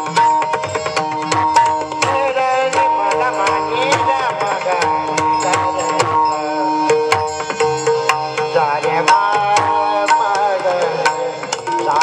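Marathi devotional bhajan music: frequent hand-drum strokes under steady held melody tones, with a voice sliding in pitch a few times.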